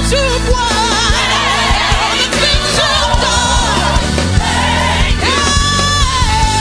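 Live gospel band with a female lead singer ad-libbing in wavering runs over backing singers, drums, bass and electric guitar; about five seconds in she holds one long high note.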